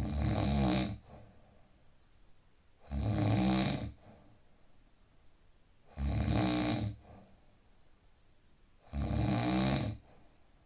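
A man snoring in a slow, even rhythm. There are four snores, each about a second long and about three seconds apart, with quiet between them.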